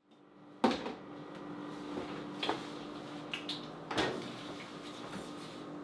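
Rummaging in a refrigerator: a few knocks and clunks of items and the door being handled, the loudest about half a second in, with lighter clicks between, over a steady low hum.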